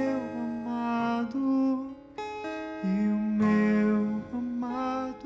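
Slow worship music: acoustic guitar strummed softly under long held notes, sung without clear words.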